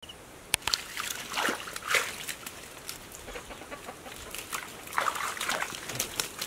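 Bare hands scooping and slapping through wet mud and shallow water, making an irregular run of sharp splashes and squelches.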